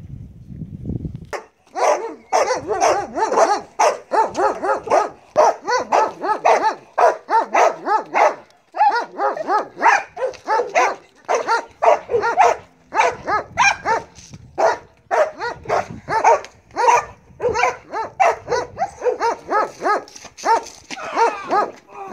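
Belgian Malinois barking rapidly and without pause, about two to three barks a second, starting about a second and a half in. This is the dog's barking at an agitating decoy in protection (bite-work) training.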